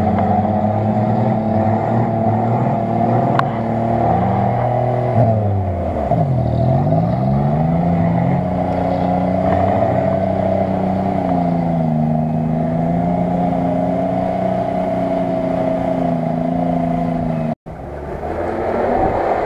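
Off-road 4x4's engine running hard as it drives through deep mud; about six seconds in the revs fall sharply and climb straight back up, then hold with smaller rises and falls. The sound breaks off for an instant near the end.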